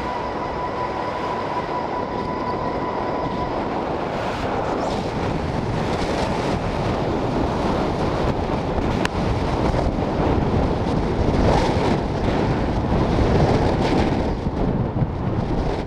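Rushing wind and motor noise on the onboard camera of an FPV model plane flying fast and low, steady and dense throughout. A held tone from fading background music dies away in the first few seconds.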